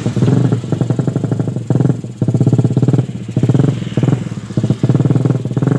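Stock Suzuki Satria FU 150 single-cylinder four-stroke engine revved hard in several throttle bursts, dropping back briefly between them.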